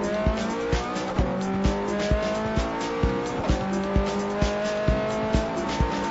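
Ferrari 430 Scuderia's 4.3-litre V8 running hard on track, its pitch rising and falling as the car accelerates and slows. Backing music with a steady beat of about two beats a second plays alongside.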